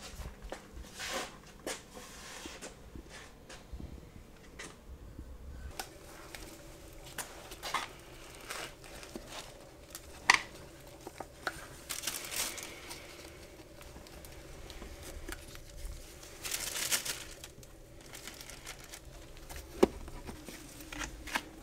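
Hand tools and engine parts being handled during an engine teardown: scattered light clicks and clinks, a few short rustling stretches, and a sharper knock about ten seconds in and again near the end.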